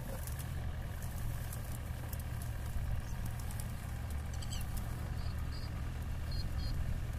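Mahindra Thar CRDe's diesel engine running steadily at low revs as the 4x4 crawls slowly up a grassy slope. A few short high chirps come a little past the middle.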